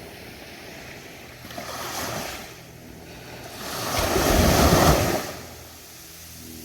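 Ocean waves breaking on a beach. A small wave washes in about two seconds in, then a larger one crashes and rushes up the sand about four seconds in, dying away a second or so later.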